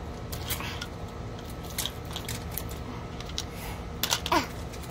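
Plastic wrapper crackling and clicking as the seal strip is peeled off a 5 Surprise Mini Brands capsule ball, in scattered small bursts. A short falling squeal about four seconds in is the loudest moment.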